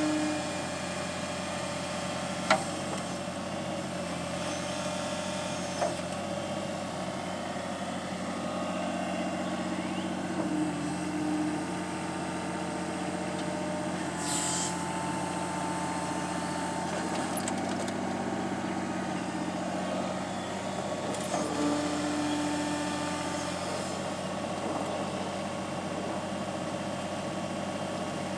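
Compact excavator running under load, a steady diesel drone with hydraulic whine that shifts in pitch as the machine works. Two sharp metallic clanks come in the first few seconds, and a short hiss follows about halfway through.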